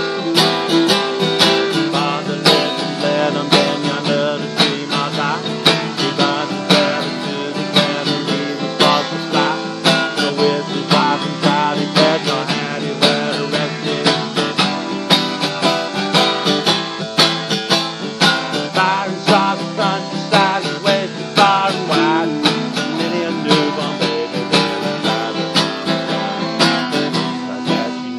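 Acoustic guitars, one a twelve-string, strumming a steady rhythm, with a clarinet playing melody over them in parts: an instrumental break between sung verses.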